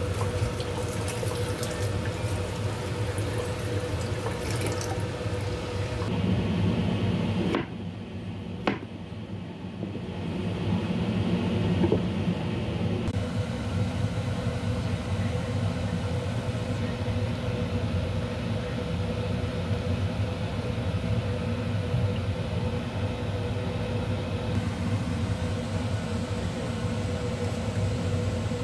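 Tap water running into a bowl in a stainless steel sink as sliced chayote is rinsed by hand, over a steady hum. Two sharp knocks about eight seconds in.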